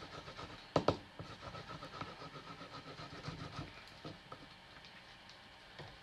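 Faint rubbing of a liquid glue bottle's tip across cardstock, and paper being handled, with a sharp double click about a second in.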